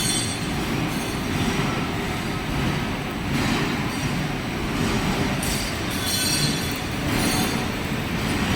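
Metal lathe running through a hand-fed cut: a steady machine rumble with short high metallic squeals coming and going every second or two.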